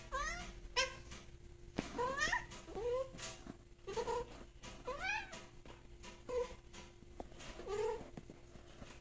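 Domestic cat giving a string of about eight short meows, each rising in pitch, roughly one a second, in the moments just after mating.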